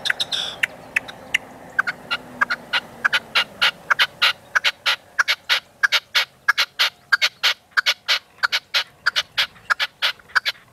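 Red-legged partridge calling: a long, rapid run of sharp clicking notes, about five a second, that builds from about two seconds in and stops abruptly near the end.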